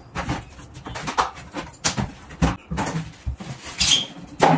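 Large corrugated cardboard box being tipped and opened by hand: irregular scrapes, rustles and knocks of the cardboard and its flaps, with a short high squeak about four seconds in and a sharp knock near the end.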